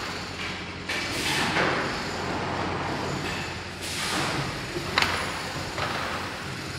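Automatic oval T-shirt screen-printing machine running: long hisses of air from its squeegee cylinders come twice, about a second in and again near four seconds, and a sharp clunk comes about five seconds in, all over a steady motor hum.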